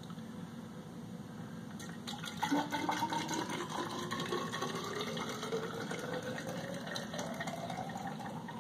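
Honey-and-water mead must poured from a glass gallon jug into a tall, narrow hydrometer test jar, starting about two seconds in. The pour rises steadily in pitch as the jar fills.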